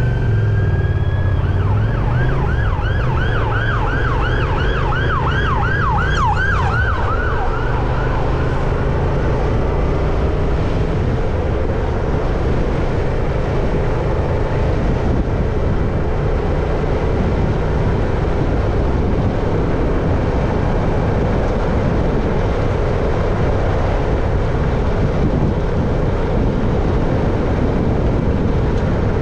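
Emergency vehicle siren: a rising wail for about a second and a half, then a fast up-and-down yelp that fades away within the first ten seconds. Under it, a steady low rumble of wind and road noise runs on.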